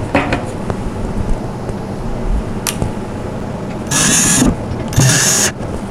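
Cordless drill driving a screw into the top panel of a flat-pack storage unit, in two short runs about a second apart near the end, with a few small handling clicks before.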